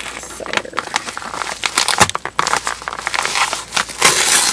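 Package wrapping crinkling and rustling as it is handled in the hands, in irregular crackles, with a louder, denser stretch of crinkling near the end.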